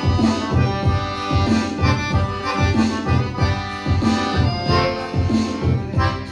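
Piano accordion playing a lively tune, with a steady bass beat about two to three times a second under the melody.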